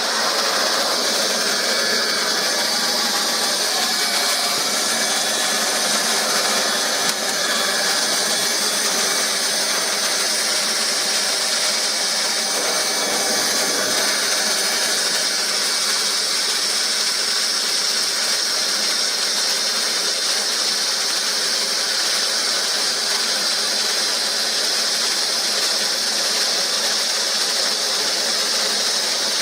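Hot-air plastic welder blowing steadily while welding plastic seams, a constant rushing hiss.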